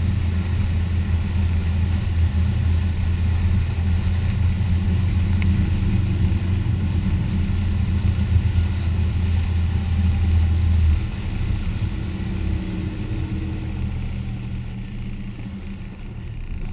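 Motorboat engines running under way, heard from on board a 1989 Sea Swirl Tahoe with a second boat running close alongside. A steady low engine drone sits over the rush of water; about eleven seconds in the drone drops and then slowly fades.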